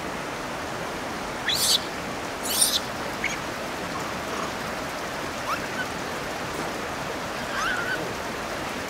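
Steady rush of flowing hot-spring water, with a few short high-pitched calls from Japanese macaques: two sharper squeals about one and a half and two and a half seconds in, then a few soft rising chirps.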